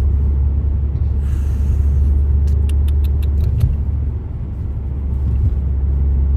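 Steady low rumble of a car's engine and tyres on the road, heard from inside the cabin while driving. A brief hiss comes about a second in, and a quick run of light clicks about halfway through.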